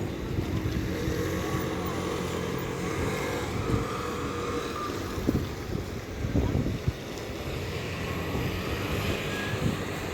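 City traffic: motor vehicle engines running steadily as they pass, with a held engine tone in the first few seconds.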